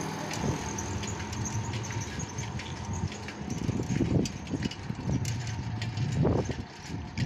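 A small vehicle engine running steadily at low speed, with low gusts of wind on the microphone over the second half.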